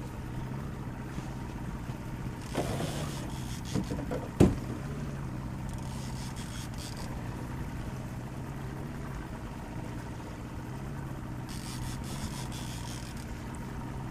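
Boat engine running at a low idle, a steady low hum, with a sharp knock about four and a half seconds in and short stretches of hiss around three and twelve seconds in.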